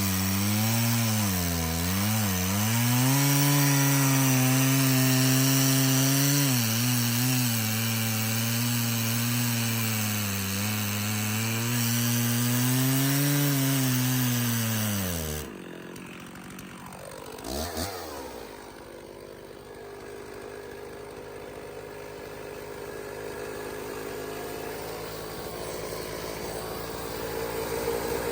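Gas chainsaw running at full throttle through a log, its pitch sagging a few times as it loads up in the cut, then stopping abruptly about halfway through. After that a quieter engine runs, growing louder near the end.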